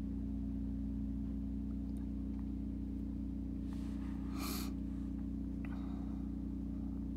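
Steady low hum of a vacuum excavation truck's engine running, with a brief hiss about four seconds in.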